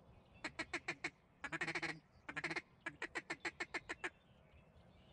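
Duck call blown by a hunter in runs of quick quacks: about five, a longer rolling note, a short burst, then about eight more. It is calling to ducks working over the decoys.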